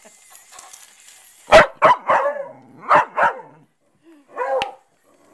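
A dog barking at small robotic toy crabs, in two quick runs of loud barks starting about a second and a half in, then one softer bark near the end.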